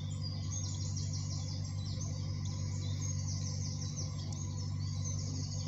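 Narrowboat engine running with a steady low drone while the boat cruises slowly, with songbirds giving many short, repeated high chirps over it.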